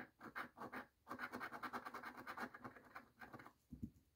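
A quarter scraping the silver coating off a paper scratch-off lottery ticket: a few separate strokes, then a run of quick back-and-forth scrapes lasting about two and a half seconds before it stops.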